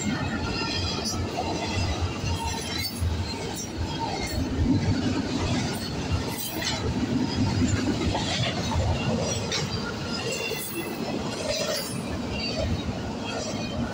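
Double-stack intermodal freight train's well cars passing close by: a steady rumble of steel wheels on the rails, broken by many irregular sharp metallic clanks.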